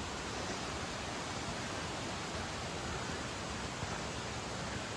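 Steady, even rush of a small stream-fed waterfall. The flow is low, with little pressure behind the falling water.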